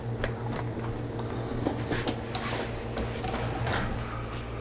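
Scattered light clicks and knocks of a white plastic slim storage cart being handled, over a steady low hum.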